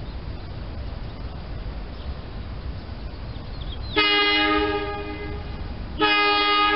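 Horn of an approaching SEPTA Silverliner electric commuter train, sounding two blasts: a short one about four seconds in and a longer one two seconds later, each a chord of several steady tones. A low rumble runs underneath.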